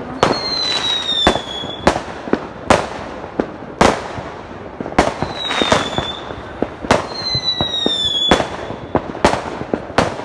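Fireworks going off in a string of sharp bangs over a constant crackle, with three whistling shells whose tone drops slightly as they fly.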